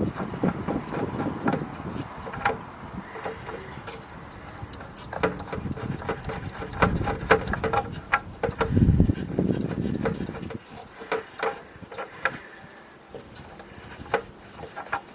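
A new oil filter being screwed onto a Fiat Panda's engine by hand: scattered clicks and knocks of metal, with rubbing and scraping and a few dull thumps.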